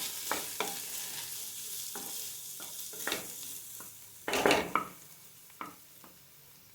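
Carrot and moong dal fry sizzling in a pan as it is stirred, with scattered clicks and scrapes of the utensil against the pan and a louder knock about four seconds in. The sizzle fades near the end.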